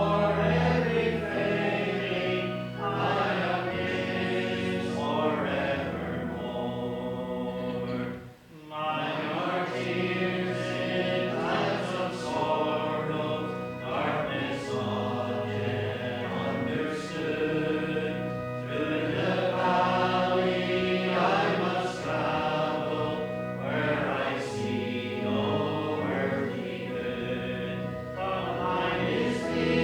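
Church congregation singing a closing worship song together, with a brief pause between lines about eight seconds in.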